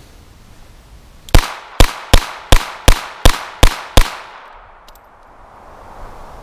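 Smith & Wesson Model 63 .22 LR revolver fired eight times in quick succession, about three shots a second, emptying its eight-shot cylinder.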